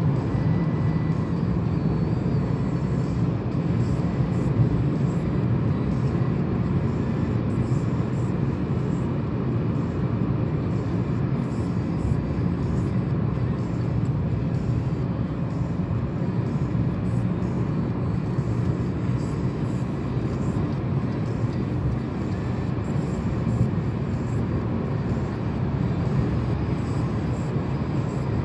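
Steady low drone of a car driving, heard from inside the cabin: engine and tyre noise from the road.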